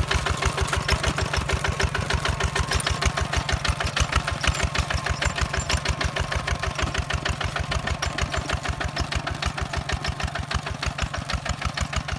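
Walking tractor's single-cylinder diesel engine running steadily under load while pulling a disc plough, with a fast, even chugging beat.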